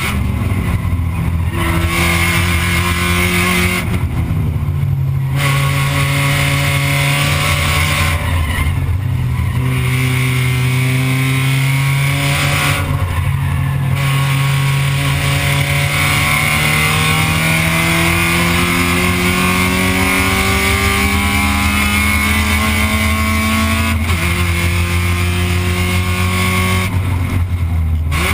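Spec Miata's four-cylinder engine heard from inside the cabin at racing speed, revs rising under throttle and dipping briefly several times as the driver lifts for corners. In the second half there is one long climbing pull that ends in a sudden drop in pitch, as at an upshift.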